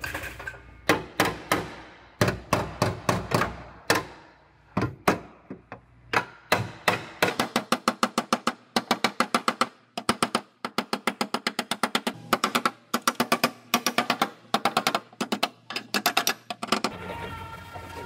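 Body hammer striking the car's steel rear floor and rolled bracket in quick, irregular runs of ringing taps, up to about four a second. The taps work the folded metal back into shape while a frame-rack pull holds it under tension.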